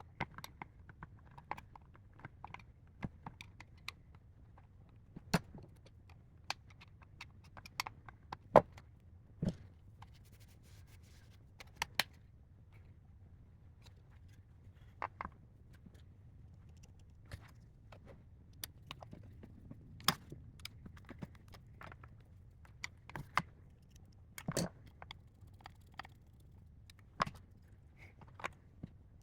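Scattered small clicks, taps and scrapes of hands working a car dashboard display unit's plastic housing and small parts. There is a sharper knock about eight and a half seconds in.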